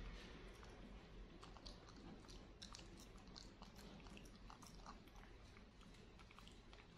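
Faint, irregular little clicks and smacking mouth noises from a young monkey mouthing and grooming a baby monkey, over a low room hum.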